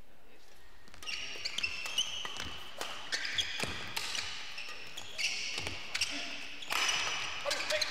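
Badminton doubles rally: sharp racket strikes on the shuttlecock and rubber-soled court shoes squeaking on the court floor, starting about a second in.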